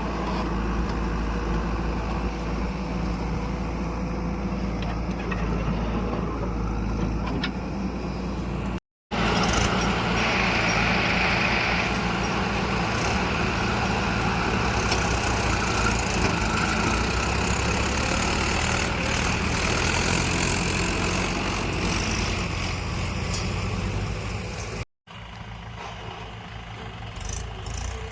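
Diesel engines of heavy farm and construction machinery running steadily, heard across three clips joined by abrupt cuts about nine seconds in and near the end.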